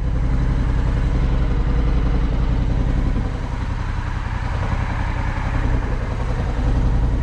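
Honda Africa Twin DCT's parallel-twin engine idling steadily, a little quieter from about three seconds in.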